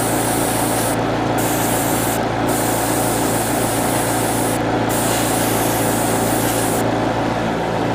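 Airbrush spraying yellow paint onto small plastic model parts: a steady hiss of air and paint that stops briefly a few times as the trigger is let off, over the steady hum of the air compressor.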